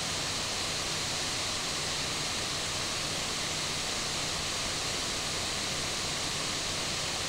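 Steady background hiss from the recording microphone, even and unbroken, with a faint low hum beneath it.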